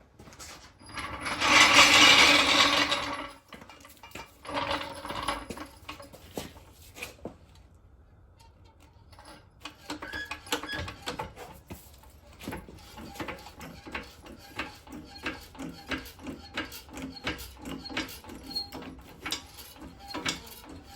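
Tool work on a car wheel that is being taken off for a brake job: a loud rattling burst a second or so in, then, from about halfway, a long run of sharp clicks at roughly two a second.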